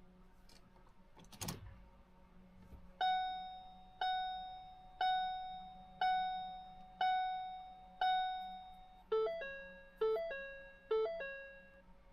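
Electronic warning chime: six identical decaying dings, one a second, then three quicker two-tone dings that step down in pitch. A single click comes a second and a half in, before the chimes.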